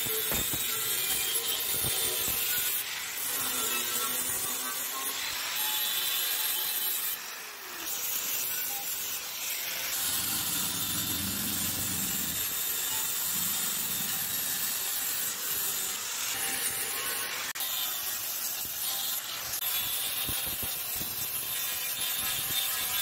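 Steady abrasive rubbing and scraping on a surface, typical of sanding or brushing during restoration work, with a short pause about seven seconds in.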